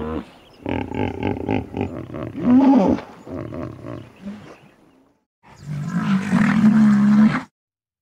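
Rhinoceros calling: a run of low, pitched calls, then one long, loud call from about five and a half seconds in that stops abruptly.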